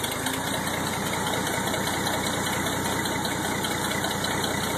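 Clark forklift engine running steadily at idle.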